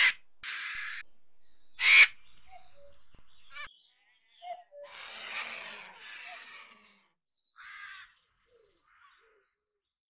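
Harsh, crow-like caws from large birds, a few separate calls: the loudest and shortest about two seconds in, a longer one around five seconds, a shorter one near eight seconds, then the calls stop.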